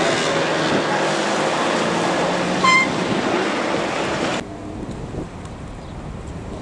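Outdoor ambience of a crowded waterfront promenade: a murmur of many people's voices under steady wind noise, with a short high whistling tone about midway. About two-thirds of the way through it cuts abruptly to a quieter, even hiss of wind by the water.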